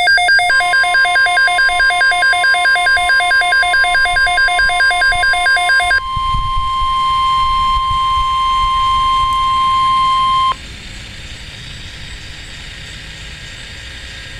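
NOAA Weather Radio warning alarm tone: one steady high tone that starts just after the beginning and cuts off sharply about ten seconds in, signalling a weather alert. For the first six seconds it is overlaid by a loud electronic alert beeping that pulses about four times a second. After the tone stops, only a few seconds of faint radio hiss remain.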